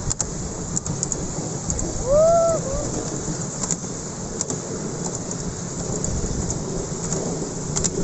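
Miniature railway carriage rolling along the track: a steady rumbling rush of wheels and wind with occasional sharp clicks. About two seconds in, a short rising-and-falling cry stands out as the loudest sound.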